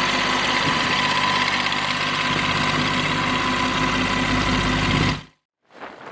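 Tractor engine running steadily under load, then cut off abruptly about five seconds in, followed by wind buffeting the microphone.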